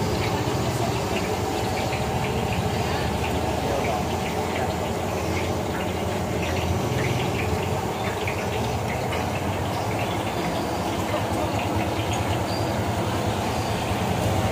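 Gas burners running steadily under karahis of hot oil, with crackling from deep-frying in the large karahi.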